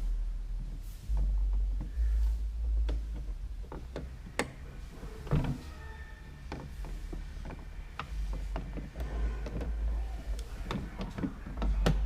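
Scattered clicks and knocks of a hand tool and metal parts being worked at a small bolt in a car door, with bursts of low rumbling handling noise.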